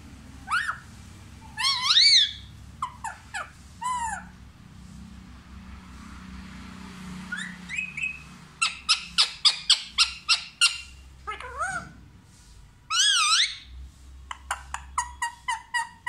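Rose-ringed (Indian ringneck) parakeet calling: short gliding chirps and whistles, a quiet spell, then a quick run of about ten sharp chirps, a wavering whistle, and another rapid run of chirps near the end.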